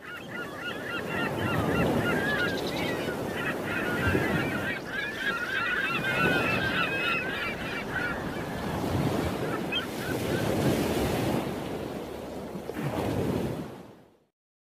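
A flock of birds, goose-like, calling in many overlapping honks over a steady rushing noise. The calls thin out after about nine seconds, and the whole sound fades out shortly before the end.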